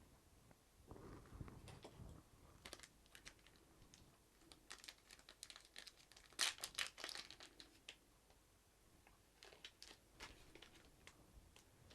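Faint clicks, taps and crinkling of small plastic and metal laptop parts being handled and worked on during disassembly, with a low bump about a second in and the densest burst of clicks just past the middle.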